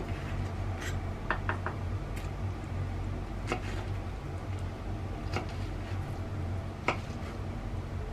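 Chef's knife cutting okra on a wooden cutting board: a few separate taps of the blade on the board, a second or more apart, the sharpest near the end, over a steady low hum.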